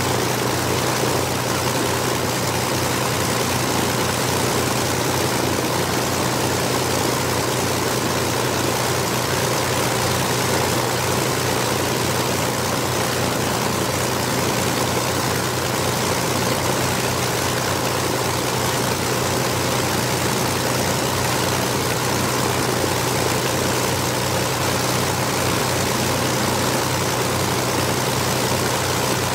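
The Rolls-Royce Merlin V-12 engines of a de Havilland Mosquito running steadily on a ground run, propellers turning, with an even low pulse under the drone.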